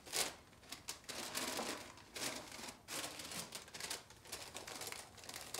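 Paper bags rustling and crinkling as they are handled: a brown paper bag set on a shelf and a small white paper packet picked up, in a string of short, irregular crinkles.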